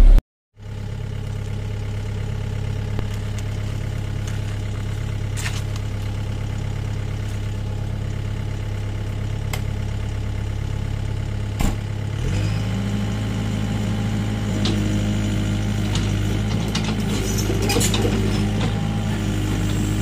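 LiuGong hydraulic excavator's diesel engine running steadily during the arm-in ("coming in") movement. A short knock comes just before twelve seconds in, then the engine speeds up and holds at a higher pitch.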